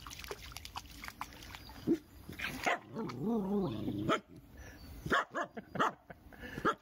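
Finnish Spitz giving voice: a drawn-out, wavering call about two and a half seconds in, then a few short, sharp barks near the end.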